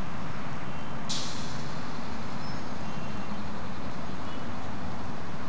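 Steady street traffic noise from passing vehicles, with a short, sharp hiss about a second in.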